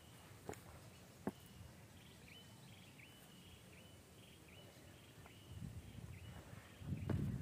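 A bird repeating a short, flat high note about twice a second for several seconds, over quiet open-air background with a couple of faint clicks at first. A low rumble builds near the end.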